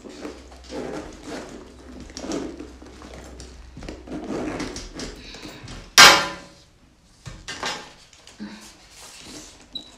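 Leather handbag and its metal hardware being handled: irregular rustling and soft knocks, then one loud, sharp metallic clack with a short ring about six seconds in, and a couple of lighter clicks after it as the shoulder strap's metal clip is worked.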